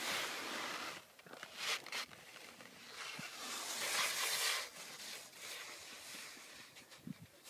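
Skis hissing and scraping over snow in several swelling swishes as turns are made, with wind rushing over the microphone.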